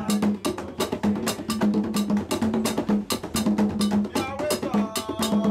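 Hand-drum percussion music: fast, dense drum strokes with a low drum note pulsing in a repeating pattern beneath them.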